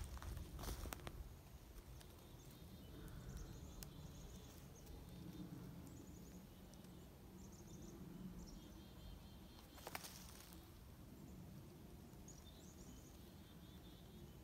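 Faint woodland ambience: small birds chirping in short repeated phrases in the distance over a low rumble of wind, with a single faint click about ten seconds in.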